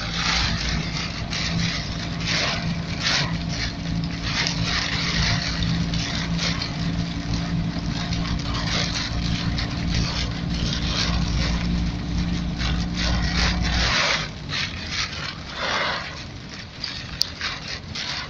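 Fiat 126p's air-cooled two-cylinder engine running steadily on a rainy drive, over the hiss and swish of wet road. The engine note cuts off about fourteen seconds in, leaving only the wet hiss and swishing.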